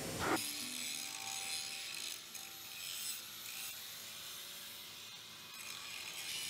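Scraping and rubbing of hand work on steel excavator booms, over a steady high hiss of factory hall noise.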